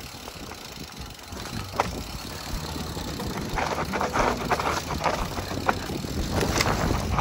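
Mountain bike descending a dirt forest trail at speed: wind rumble on the bike-mounted microphone, tyres running over dirt and dry leaves, and the bike rattling over bumps with sharp knocks. The rattling and crunching grow louder and rougher about halfway through and again near the end.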